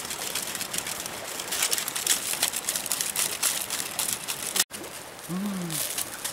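Wood cooking fire crackling and rustling while it is fanned with a bundle of dry bamboo strips: a dense, irregular run of sharp crackles. About three-quarters of the way through it cuts to the steady rush of river water.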